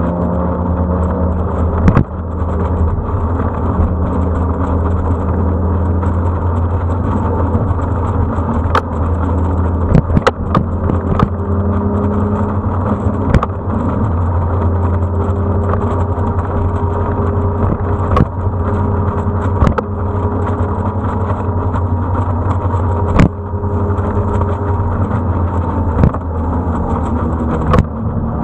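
Road vehicle's engine running steadily at cruising speed under wind rush on a vehicle-mounted action camera, with scattered sharp knocks. The engine's pitch rises about a second in and again near the end.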